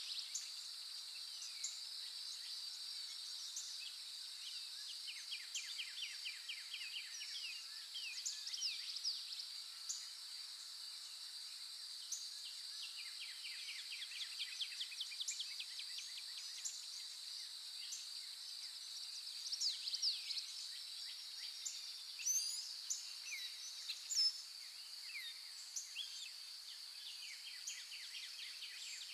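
Outdoor nature ambience: a steady, high-pitched drone of insects, with several birds chirping and giving quick trills over it throughout.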